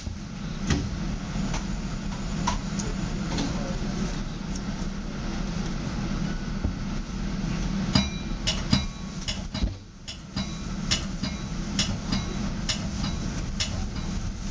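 Metra commuter train cab car rolling along the track: a steady low rumble with irregular sharp clicks and knocks that come thicker past the middle.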